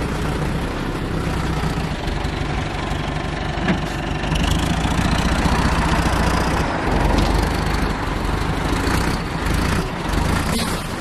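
Diesel engine of a MAN 7.5-tonne lorry running steadily as the lorry creeps across soft ground, getting a little louder from about four seconds in.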